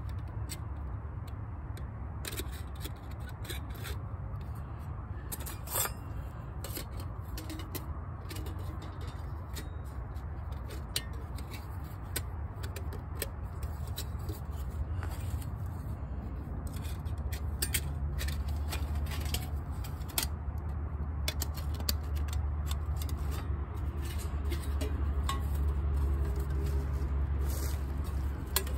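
Twigs and camp gear being handled, giving scattered sharp clicks and snaps over a steady low rumble that grows louder in the second half.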